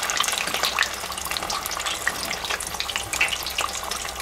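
Rice-paper spring rolls deep-frying in hot oil, about 170 °C, in an electric deep fryer: the oil bubbling and crackling steadily with many small pops.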